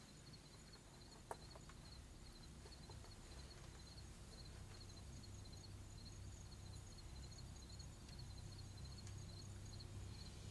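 Near silence with faint insects chirping, a steady pulsing trill at a high pitch, and one sharp click about a second in.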